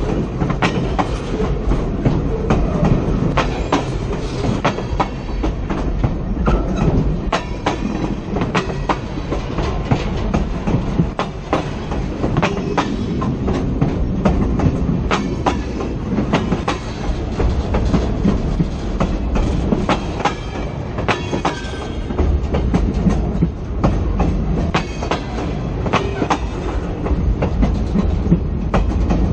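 Train wheels rolling over the rails right at a camera on the track: a steady heavy rumble with a long run of sharp clacks as the wheels cross the rail joints.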